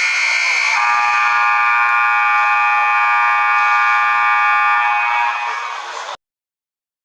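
X-ray machine sound effect: a loud, steady electrical buzzing whine. About a second in, a single high tone gives way to a chord of several held tones. It sags slightly near the end and then cuts off suddenly about six seconds in.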